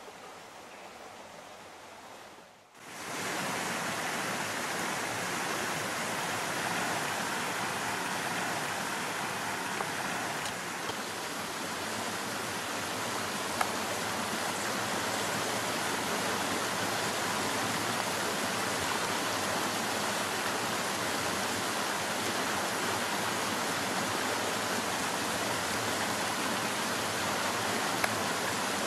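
Creek water rushing and splashing over rocks in a small cascade, a steady, even rush. It cuts in abruptly about three seconds in, after a much quieter hiss.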